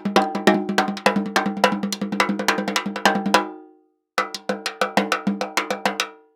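Two cartoon sound effects in a row, each a fast run of hollow, pitched knocks on one note at about eight a second. The first lasts about four seconds and tails off. After a short gap, the second comes in about four seconds in and fades out near the end.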